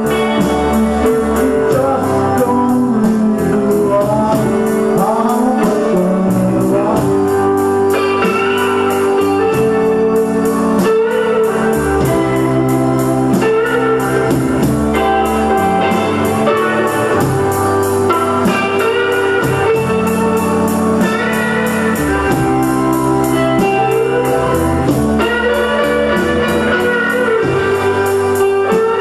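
Live band playing an instrumental passage: an electric guitar lead with bent notes over bass guitar, drums and a second guitar.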